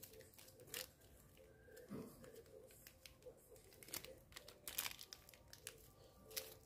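Thin plastic bag of cream crinkling in faint, scattered sharp crackles as it is twisted and folded shut by hand.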